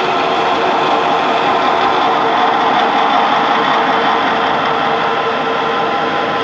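Metal lathe running steadily: an even mechanical noise with several held tones that stays unchanged throughout.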